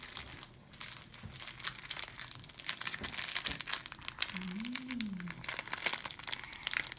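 Crinkling of a shiny glitter packet as it is squeezed and shaken to pour glitter out, a dense run of rapid crackles throughout.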